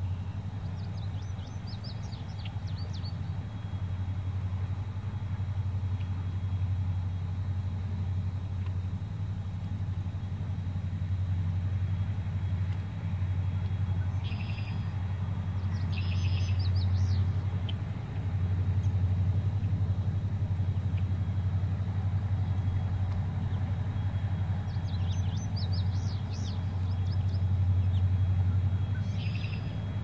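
Steady low engine drone of a river barge, with birds chirping briefly several times over it.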